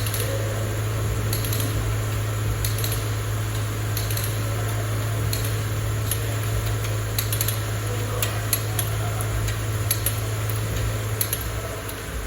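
Subaru Outback Wilderness 2.4-litre turbocharged flat-four engine idling steadily after an oil change, with scattered light clicks and taps over the steady hum.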